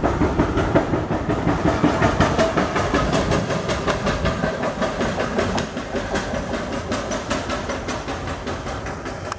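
Plasser diesel track maintenance machine running along the rails, its wheels clicking over the rail joints in a quick, even rhythm over a steady rumble, growing fainter as it moves away.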